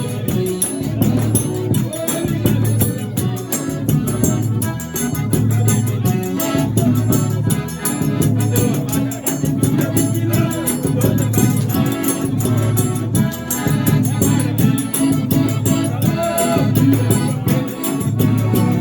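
Forró music playing loudly, with a fast, steady high percussion rhythm over strong bass.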